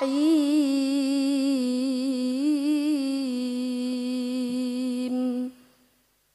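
Woman reciting the Qur'an in melodic tilawah style, drawing out the last word of the Basmala (ar-Rahim) as one long held note with wavering, ornamented turns of pitch. The note stops about five and a half seconds in.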